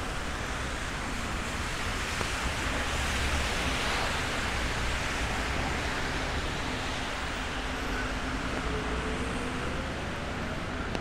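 Steady hiss of traffic on wet city streets in the rain, swelling as a vehicle passes about three seconds in. A faint rising whine comes near the end.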